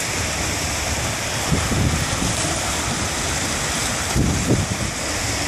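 Broken river ice moving downstream during spring breakup: a steady rushing hiss, with wind buffeting the microphone and a few low bumps, the strongest about four seconds in.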